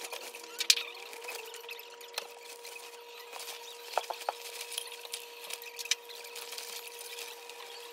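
Rustling and scrunching of a puffy quilted fabric bag being handled and packed, with scattered small clicks and taps. A faint steady hum runs underneath.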